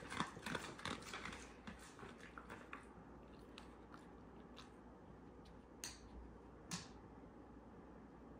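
A dog chewing a treat just given as a reward: a quick run of small crunching clicks that fades out over the first three seconds. Two sharper clicks about a second apart follow around the middle.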